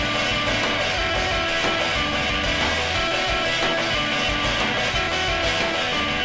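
Guitar-led rock song with a steady drum beat, played back from a 7-inch vinyl record.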